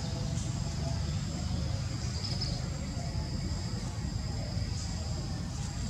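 Outdoor ambience: insects droning steadily at a high pitch over a low steady rumble, with a few faint ticks.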